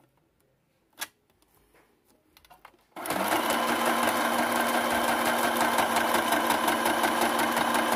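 A sewing machine stitching a straight seam through clear crystal plastic, starting about three seconds in, running at a steady fast pace for about five seconds and stopping abruptly near the end. A single sharp click comes about a second in, before the stitching starts.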